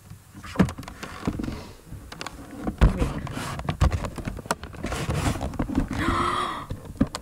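Handling noise: the camera's microphone knocking and rubbing against clothing and couch cushions as it is moved about, in irregular bumps and scuffs. A brief pitched sound comes about six seconds in.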